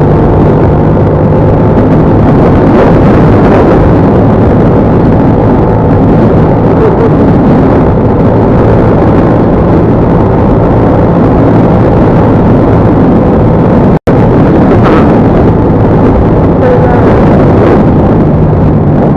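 Motorcycle engine running steadily while riding, loud and buried in a dense rushing noise over the microphone. About two-thirds of the way through, the sound cuts out for an instant.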